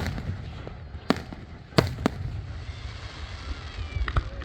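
Fireworks going off: three sharp bangs in the first two seconds, then a short flurry of smaller crackling pops near the end, over a steady low rumble.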